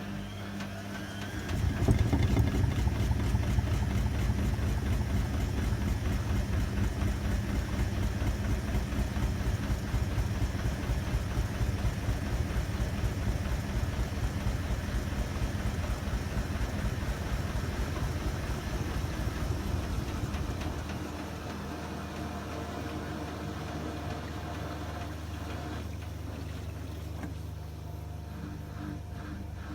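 Hotpoint WMA30 washing machine spinning with an unbalanced load. About a second and a half in, a loud low rumble of rapid pulsing sets in as the drum shakes. Around twenty seconds in it drops back to a quieter steady motor hum.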